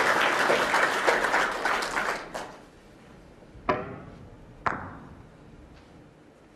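Audience applause fading away, then a snooker shot: the cue tip clicks against the cue ball, and about a second later the cue ball clicks into another ball.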